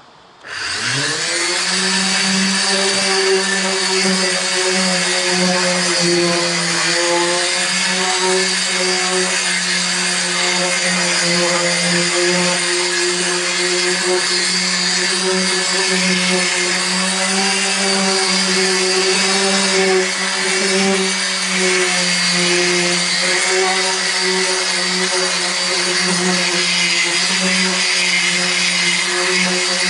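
Corded electric orbital sander starting up about half a second in, its pitch rising, then running steadily with a constant hum and hiss as it sands back the bus's painted roof to prepare it for repainting.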